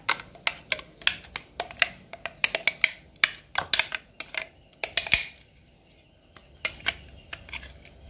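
Plastic blender jar tapped and knocked to shake ground chicken paste out into a plastic bowl: a quick, uneven run of sharp clicks and knocks for about five seconds, then a few scattered taps near the end.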